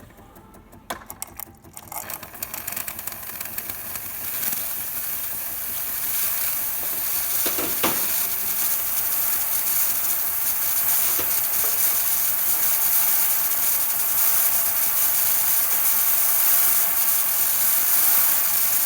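Gaggia Academia espresso machine's steam wand releasing steam: a hiss that builds over the first few seconds and then holds steady and loud. A few clicks come just before the hiss starts.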